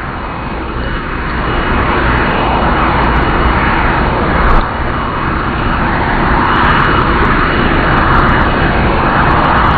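Jet engines of the Shuttle Carrier Aircraft, a Boeing 747, running on the ground. They make a steady loud rushing noise with a thin high whine, growing louder over the first two seconds and then holding.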